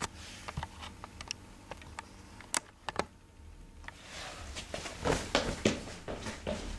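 Scattered light clicks and taps, then footsteps on a wooden floor coming closer, with heavier steps in the second half.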